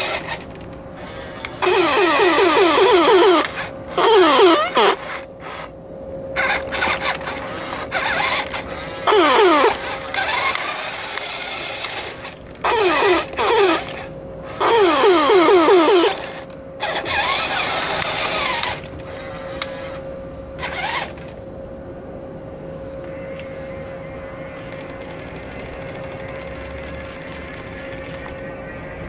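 Battery-powered toy fire truck playing its electronic siren sound effect: repeated bursts of quick falling wails mixed with harsh noisy blasts, which stop about twenty seconds in. A faint steady tone remains after that.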